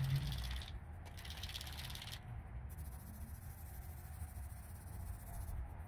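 Aerosol spray-paint can being shaken, its mixing ball rattling in rapid bursts for the first two seconds or so, then it stops.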